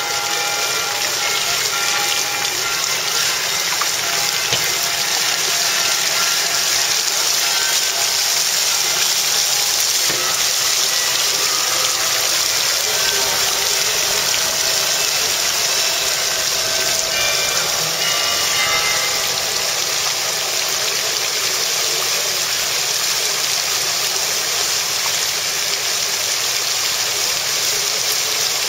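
Fountain water falling steadily from a raised bowl and basin rim into its pool, a continuous splashing rush.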